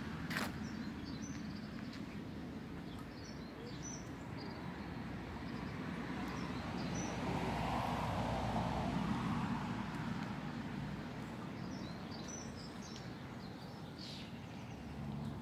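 Outdoor background of steady traffic hum, swelling about halfway through as a vehicle passes, with small birds chirping. A single sharp click comes just after the start.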